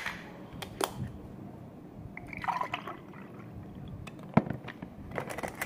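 A milky drink being poured into a drinking glass, filling it. A few sharp knocks sound, the loudest right at the start and about four seconds in.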